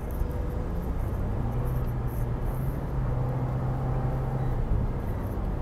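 Steady road and engine noise inside a car cruising on a highway at about 120 km/h, held there by the car's speed limiter, with a low hum that swells from about a second and a half in and eases near the end.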